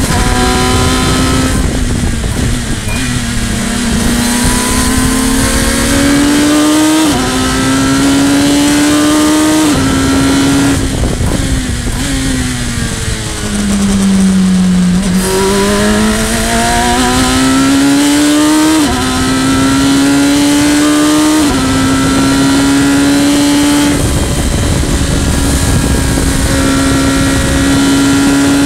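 Radical SR3's motorcycle-derived engine heard from the open cockpit, revs climbing with quick upshifts. About halfway the revs fall through downshifts as it brakes into a slow corner, then it accelerates again through a couple more quick upshifts before running steady at high speed, with wind rushing over the cockpit.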